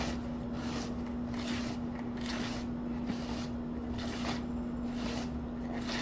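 A whisk stirring thick honey-spice cake batter in a plastic bowl, folding in sifted flour: soft, wet, squishing strokes at a steady pace of a little more than one a second.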